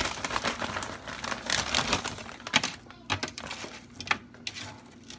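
Plastic bag crinkling and rustling as a hand rummages in it, with irregular clicks and taps of frozen chicken pieces being taken out and set down on a baking tray.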